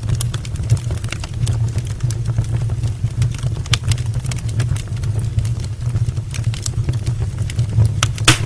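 Firewood burning in an open brick fireplace: a steady low rumble of flame with frequent sharp crackles and pops, the loudest pop near the end.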